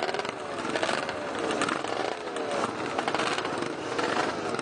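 A pack of vintage motocross motorcycles idling and revving together at the start line, several engines rising and falling in pitch over one another.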